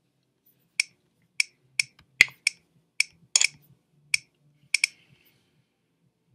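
Sharp clicks at a computer, about ten in an uneven run, two in quick succession near the end.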